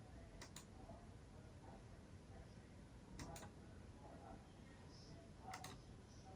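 Near silence: faint room tone with three soft double clicks, a couple of seconds apart.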